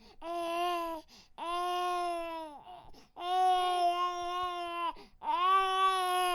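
Infant crying: four long wails in a row with short catches of breath between them, each holding a steady pitch and dropping off at the end.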